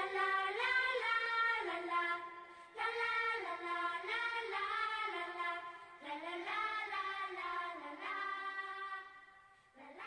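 A high voice singing held notes that step up and down in pitch, with little or no accompaniment, growing fainter near the end.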